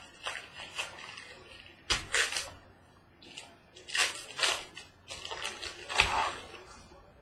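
Packaging rustling and crinkling in irregular bursts as a box of trading cards is opened and its contents handled, with two light knocks, about two seconds in and near the end.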